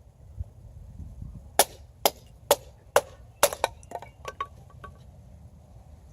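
Batoning with a bushcraft knife: about six sharp strikes on the knife's spine, roughly two a second, then a few lighter knocks.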